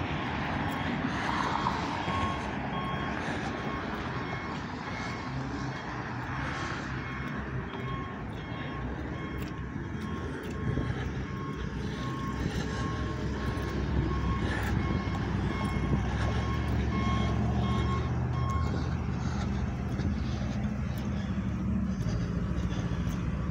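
Street traffic with a repeated short electronic beep that stops about four-fifths of the way through. A vehicle engine grows louder in the second half as it passes.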